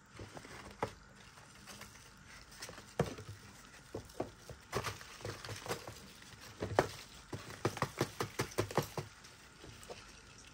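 Irregular light clicks and taps of a plastic tub of feeder roaches being handled and rummaged through, coming in flurries and thickest from about seven to nine seconds in.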